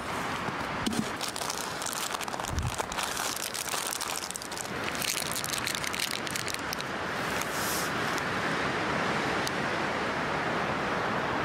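Crinkling and rustling of a plastic snack wrapper and nylon gear bag, a rapid scatter of small crackles. In the second half, steady wind noise swells and takes over.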